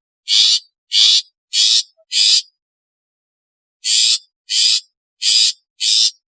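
Long-tailed shrike (cendet) giving short, harsh calls in quick series: four in a row, a pause of about a second and a half, then four more.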